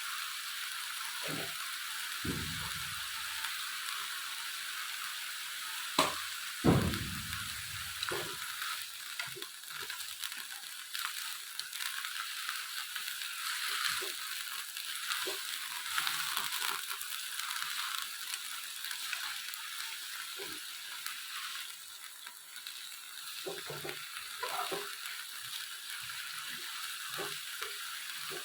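Food frying in a pan, a steady sizzle, with two loud knocks about two and six seconds in and lighter clicks and scrapes after.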